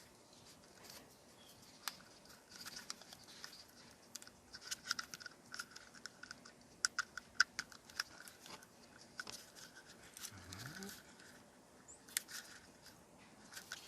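Faint scattered clicks and light scraping of small parts being handled, as the horn button and its wiring are fitted to the steering wheel.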